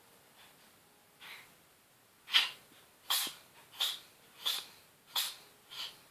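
A domestic cat sneezing six times in a rapid run, about one sneeze every 0.7 seconds, after a faint breath about a second in; the first sneeze is the loudest. The sneezing comes from a cold.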